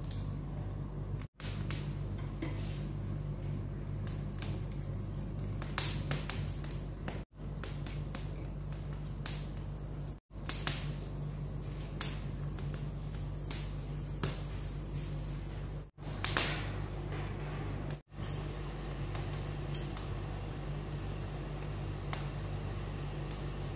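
Gas stove burner running with a steady hum while shallots and ginger char over the flame on a wire grill basket, with a few sharp clicks and crackles. The sound cuts out briefly five times.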